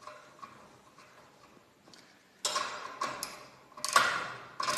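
Four sharp metallic clinks, each with a short ring, as a wrench works the set screws on a garage door torsion spring's winding cone to tighten them. They come after about two and a half seconds of quiet.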